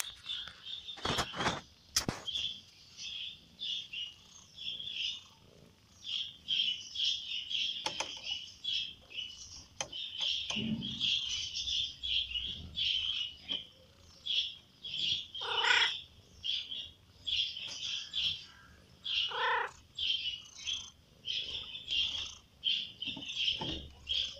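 Small birds chirping steadily, two or three short high calls a second. A cat's mew cuts in twice, near 16 and 20 seconds.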